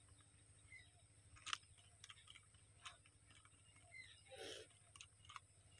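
Faint, scattered clicks of a plastic helmet phone mount being handled and tightened by its nut, with a short rustle about four and a half seconds in.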